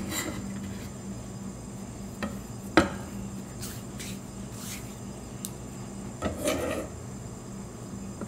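Scattered kitchen handling sounds: a few sharp clicks and a knock as a knife is laid down on a wooden cutting board, a brief rub of hands, then a short clatter near the end as a glass pot is handled. A faint low hum runs underneath.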